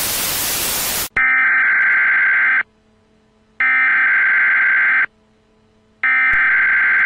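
TV static hiss for about a second, then three emergency broadcast alert bursts: harsh electronic buzzing tones of about a second and a half each, with a second of silence between them.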